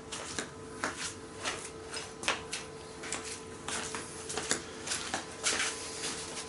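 Scattered light clicks and rustles of things being handled, irregular and fairly soft, over a faint steady hum.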